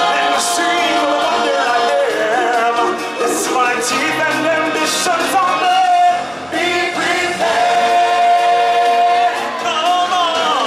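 A stage-musical song sung over a full backing track, a solo voice with a chorus joining in, with long held notes.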